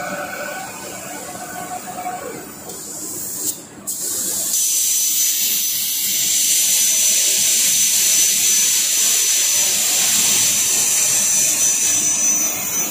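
CNC plasma cutting machine's torch arc-marking a steel plate: a steady, loud hiss of the plasma arc and gas starts about four and a half seconds in, with a thin high whine running through it. This is the marking pass done before the plate is cut.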